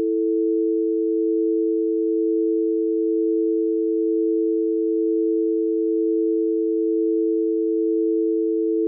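Steady telephone dial tone: two low notes sounding together, held unbroken at an even level.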